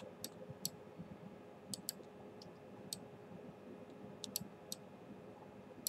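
Scattered computer mouse clicks, a dozen or so at irregular intervals, some in quick pairs, over a faint steady hum.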